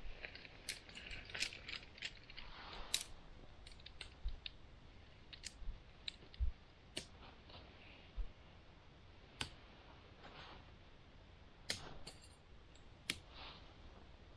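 Scattered sharp clicks and light rustling from a dome tent being pitched: pole sections and clips clicking, with a few soft thuds and fabric rustling between.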